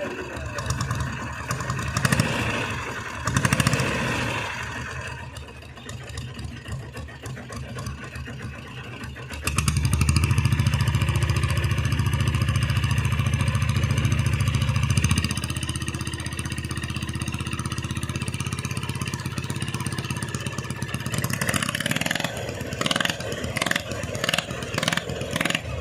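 Diesel Royal Enfield Bullet motorcycle engine running with a rhythmic low thump. It gets much louder for about five seconds from roughly ten seconds in, then settles back, with uneven sharp beats near the end.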